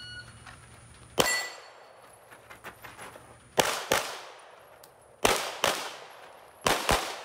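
A shot timer gives a short beep, then a handgun fires: a single shot about a second later, then three pairs of quick shots, each sharp crack trailing off in echo. The second pair is spaced a little wider than the last.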